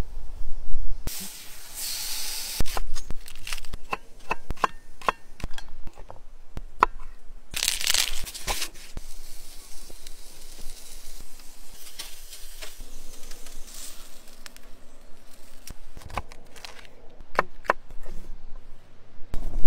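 Cooking sounds cut together: two short bursts of hiss, scattered sharp taps and clicks, and a knife chopping on a wooden board near the end.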